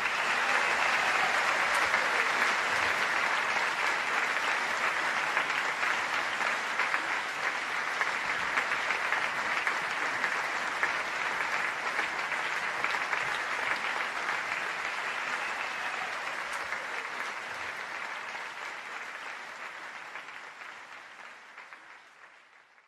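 Audience applauding after the big band's final number, steady at first and gradually dying away toward the end.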